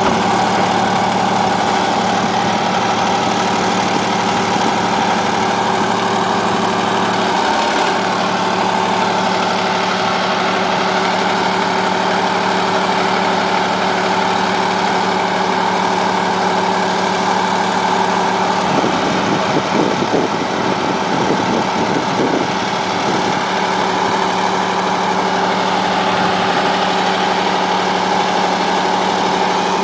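Engine of a repair machine idling with a steady, even hum. About two-thirds of the way through, some brief irregular rattling sounds over it.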